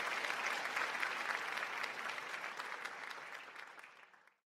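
Auditorium audience applauding at the end of a talk; the clapping dies away near the end.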